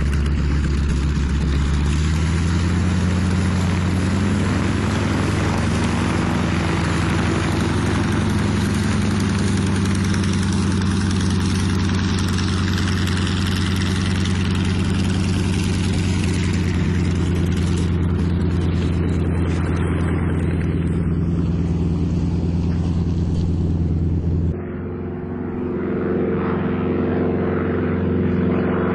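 North American T-6 Texan's nine-cylinder Pratt & Whitney R-1340 radial engine and propeller running hard in flight, a loud, steady drone whose pitch shifts a little. Near the end the sound changes suddenly, a little quieter and duller, then builds again.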